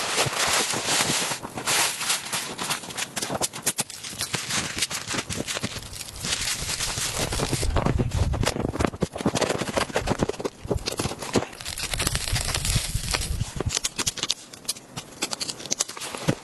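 Blizzard wind gusting, with rumbling low buffets on the microphone at times, over a dense run of irregular sharp crackles and clicks.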